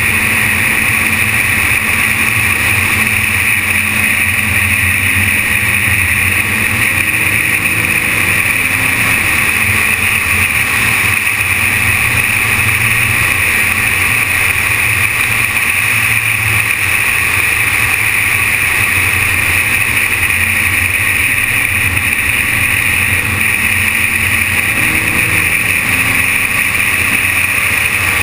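Steady driving noise of a BMW 530d on an open road: wind and tyre noise with a low engine drone whose pitch drifts slightly, picked up through a GoPro's closed waterproof housing mounted on the outside of the car.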